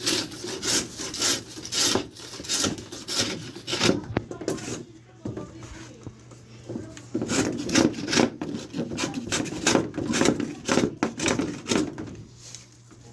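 A hand tool worked back and forth on wood in quick rasping strokes, two or three a second, easing off briefly about halfway and then starting again.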